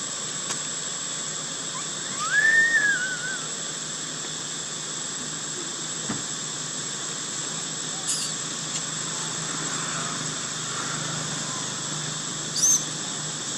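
Steady high hiss of outdoor ambience with a thin high whine. About two seconds in comes one loud, wavering, high-pitched animal call lasting about a second, and a brief high chirp follows near the end.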